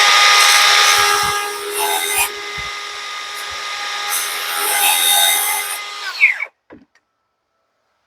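Electric power tool motor spinning up with a rising whine, running steadily for about six seconds, then winding down with a falling whine.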